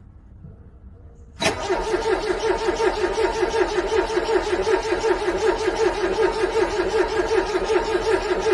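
A car's starter motor cranking a cold engine, kicking in suddenly about a second and a half in and going on with an even, rapid pulsing, without the engine catching.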